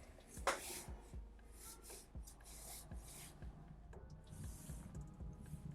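Pencil sketching on paper, faint: a series of short scratchy strokes, the sharpest one about half a second in.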